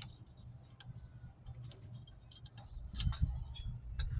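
Light metallic clicks and clinks of drum brake shoes and their springs being handled, a few louder ones about three seconds in, over a steady low hum.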